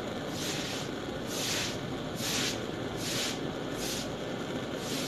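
Small butane blowtorch burning steadily, with a high hiss that swells and fades about once a second.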